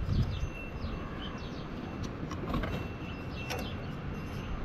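Small birds chirping in quick falling notes over a low steady rumble, with a couple of sharp clicks past the middle.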